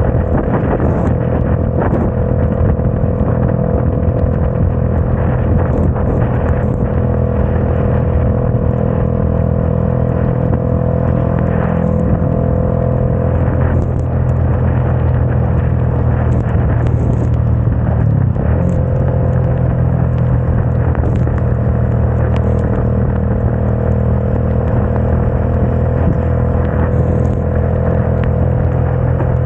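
Motorcycle engine running steadily at highway cruising speed under wind rush and wet-road noise. The engine note dips briefly about eighteen seconds in.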